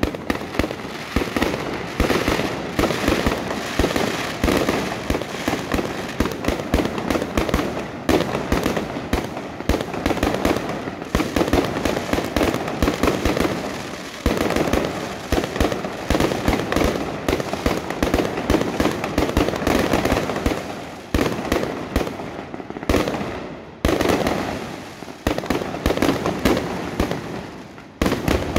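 Aerial fireworks display: a dense, unbroken barrage of bangs and crackles from bursting shells. Heavier separate bursts stand out about halfway through and repeatedly in the last third.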